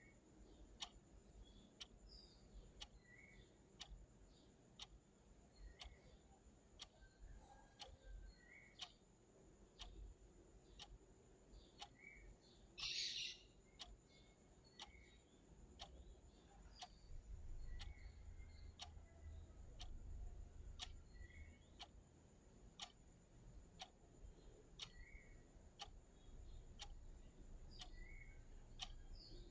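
Clock ticking steadily at about one tick a second, quiet and close. Faint chirps sound between the ticks, and a brief burst of hiss comes about 13 seconds in.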